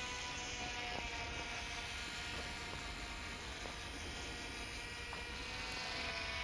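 Twin small electric motors and propellers of a Silverlit X-Twin Turbo-Fury RC plane buzzing steadily in flight, the pitch drifting slightly as the plane moves about.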